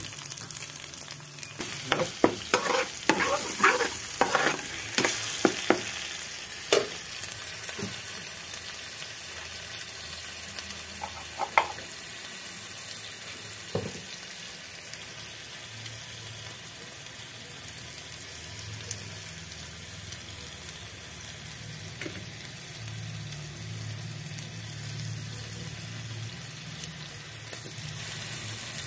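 Egg, korma and meatballs frying in hot oil in a pan, a steady sizzle. In the first several seconds a utensil knocks and scrapes against the pan in quick succession as the egg is mixed, with a few single knocks later on.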